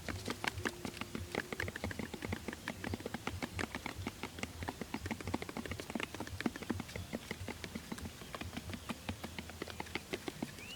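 Rapid, irregular light tapping and clicking, several taps a second, over a faint low hum.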